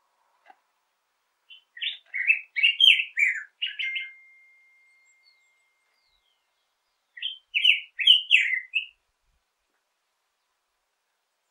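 Black-headed grosbeak singing: two warbled phrases of quick, sweeping notes. The first lasts about two and a half seconds, and a shorter second phrase follows a few seconds later.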